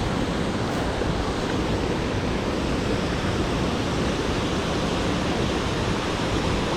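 Mountain creek water rushing over rocks, a steady even rush with no breaks.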